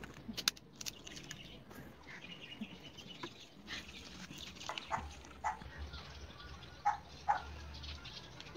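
A few short, faint animal calls in the second half, over low background noise.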